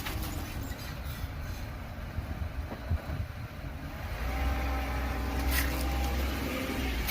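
BMW car running, with steady low engine and road noise; about four seconds in, a steady pitched squeak or drone from the car joins in and holds for a few seconds.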